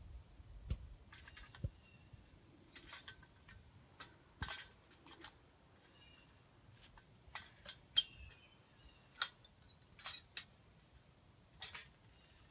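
Irregular, scattered light clicks and knocks of a long pole prodding and catching on a metal live trap as the trap door is worked at to let a skunk out. The sharpest knock comes about eight seconds in.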